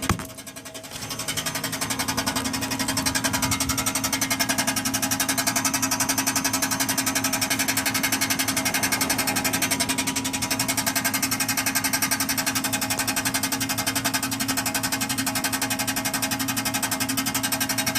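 Fast, steady rattling from underneath a 1996 Chevrolet Impala SS with the engine running, over a steady low hum, rising to full level about a second in. The rattle came on under throttle and, after the car was run hard, no longer goes away.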